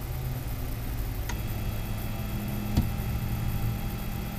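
Kudo3D Bean resin SLA 3D printer running mid-print: a steady low hum, with a faint click about a second in and a single sharper thump nearly three seconds in.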